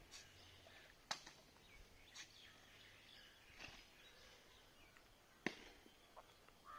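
Near silence, broken by a few faint sharp taps, the clearest about a second in and again near five and a half seconds.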